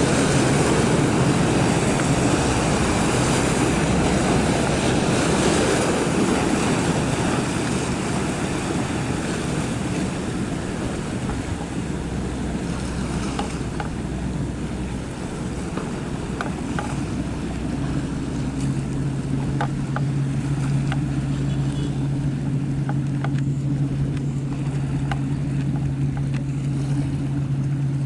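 Fast passenger ferry under way at speed: rushing, splashing water from its hull and wake over a steady engine drone. The water rush is loudest in the first several seconds, and a steady low engine hum stands out from about two-thirds of the way in.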